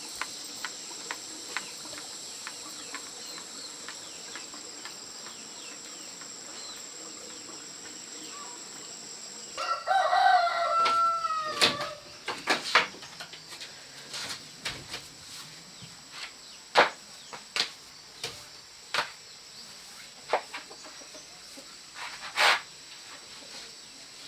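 A rooster crowing once, loud and about two seconds long, starting roughly ten seconds in, over a steady high-pitched whine. Scattered sharp clicks and taps follow the crow.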